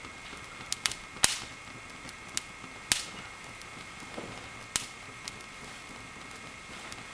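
Wood fire burning in a fireplace: about half a dozen sharp crackles and pops, irregularly spaced, over a soft steady hiss. The loudest pops come about one, three and five seconds in.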